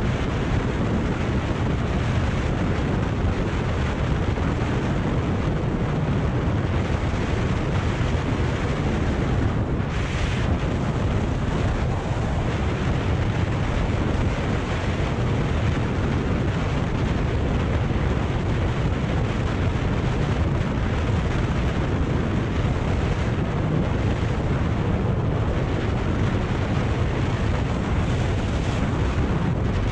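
Steady wind noise buffeting the microphone of a Kawasaki Ninja 400 motorcycle riding at road speed, with the bike's running sound mixed in. A brief hiss stands out about ten seconds in.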